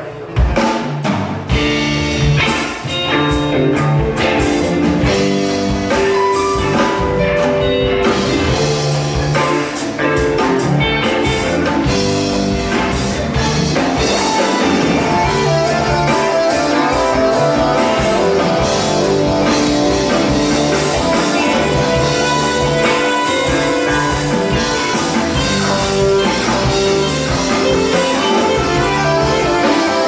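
Live rock band playing a song: electric guitars and a drum kit, with a keyboard, all coming in together about half a second in and then carrying on at a steady, full level.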